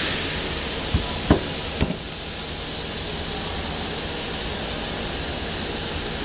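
Fiber laser CNC cutting machine: a high hiss fades away just after the start, followed by three sharp knocks a few tenths of a second apart, then a steady, even mechanical noise.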